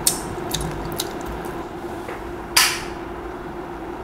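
Mouth smacking while chewing a taste of stir-fried dried anchovies: a few sharp wet clicks in the first second, then a louder short burst of noise about two and a half seconds in, over a steady low hum.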